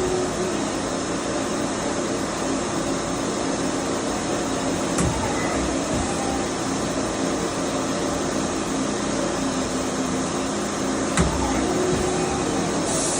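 2008 Doosan MX-2100ST CNC multi-tasking lathe running with a steady mechanical hum. There is a short sharp click about five seconds in and a louder knock about eleven seconds in.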